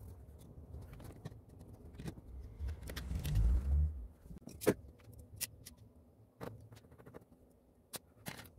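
Bench handling noises on a flat-screen TV's bare metal rear chassis as its power supply board is refitted. A dull low bump comes about three seconds in, then scattered sharp clicks and taps of a screwdriver and screws.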